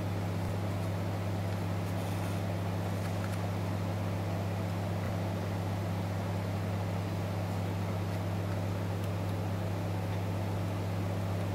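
Steady low electrical hum with a faint even hiss, holding level and pitch throughout.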